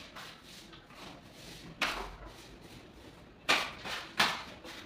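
Three short, sharp strokes of a hand tool against a gypsum false ceiling: one about two seconds in, then two close together near the end.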